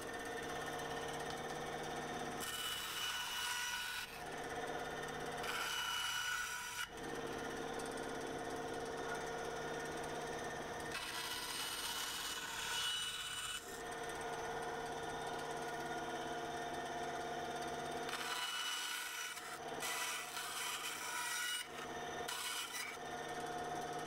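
Benchtop band saw running steadily while its blade cuts through a double layer of KYDEX thermoplastic. The rasping cutting noise comes and goes in stretches as the piece is fed into the blade and turned.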